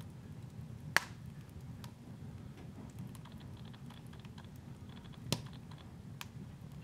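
Wood fire burning in a fireplace: a low, steady rumble of flames with a few sharp crackles and pops, the loudest about a second in and another just past five seconds.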